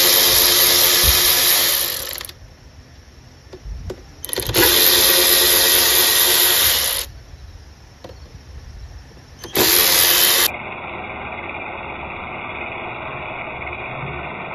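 Cordless electric ratchet running in three bursts, the first two a couple of seconds each and the last about a second, backing out the bolts of a mower's gearbox cover plate. Its motor whines with a bright, hissing edge. A quieter, steady hiss follows for the last few seconds.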